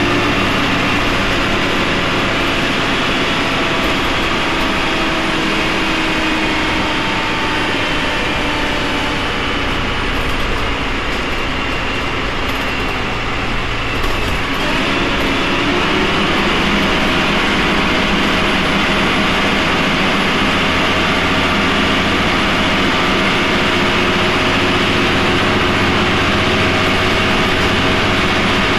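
Cummins ISMe-335E-30 diesel engine of a Transbus Trident III double-decker bus running under way, a steady drone whose pitch sags slowly, dips about halfway through, then picks up again and holds steady.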